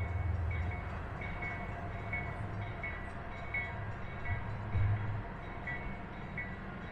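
Railroad grade-crossing bell dinging steadily, about one and a half strikes a second, over the low rumble of a passing train.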